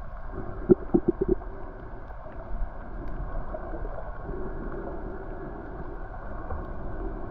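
Muffled underwater rushing and gurgling of water heard through a camera housing, with a quick run of four or five knocks about a second in.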